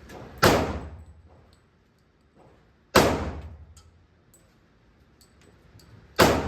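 Three gunshots, evenly spaced about three seconds apart, each a sharp crack with a short echoing tail.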